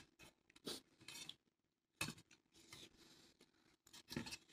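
Faint table sounds while eating ramen: a handful of short, separate clicks and scrapes of a utensil against a dish.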